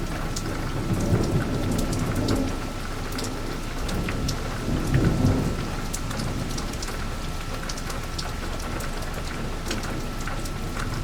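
Heavy rain falling steadily, with sharp drips ticking close by, and thunder rumbling low twice: once about a second in and again, louder, about five seconds in.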